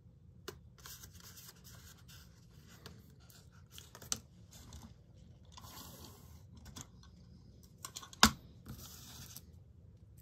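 Masking tape being peeled, pulled and pressed down by hand, in several hissing stretches of a second or so, with a few sharp taps, the loudest about eight seconds in.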